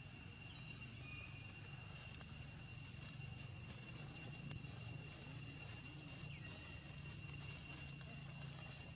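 Faint outdoor ambience: a steady, high, unbroken insect drone held on one pitch, over a low steady hum.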